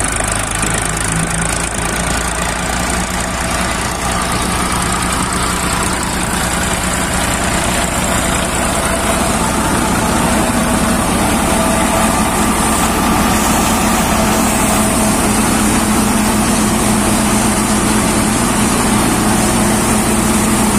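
Diesel tractor engine running steadily under load as it drives a Maruti Jumbo Tokri MA 7 thresher threshing mustard, the engine and the machine's threshing drum and blower making one continuous loud mechanical drone.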